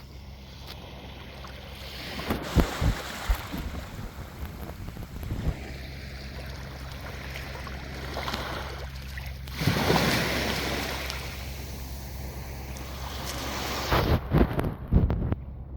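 Gentle sea waves washing in, with a stronger surge of surf about ten seconds in. Wind buffets the microphone in short loud gusts, a few around three seconds in and again near the end.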